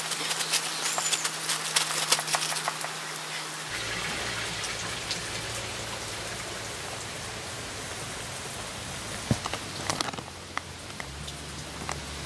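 Steady patter and splash of water, with a run of sharp clicks and scrapes over the first four seconds and a couple more about ten seconds in.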